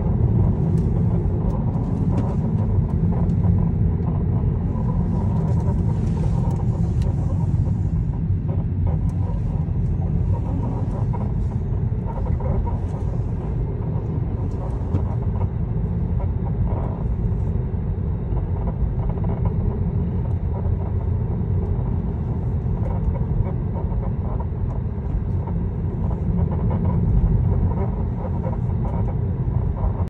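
Steady road and tyre rumble inside a 2019 Tesla Model 3 Long Range on the move, with short faint squeaks and creaks now and then from the upper control arm. The creaking is the sign of a worn upper control arm that is due for replacement.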